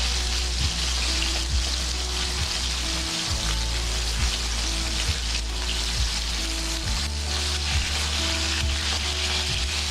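Chicken breasts sizzling steadily as they sear in piping hot oil in a pan, with a low hum underneath that drops out briefly a few seconds in and again near the end.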